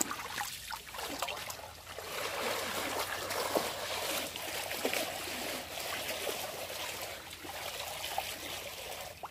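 Muddy pond water sloshing and swishing steadily as someone wades through it and churns it up by hand, with small splashes.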